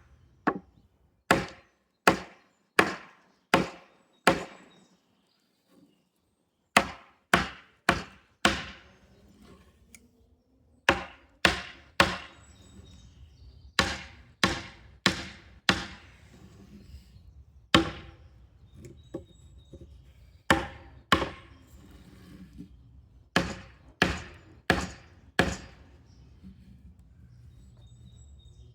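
Hammering on wood: a long series of sharp blows in runs of four to seven, about one to two a second, with short pauses between the runs.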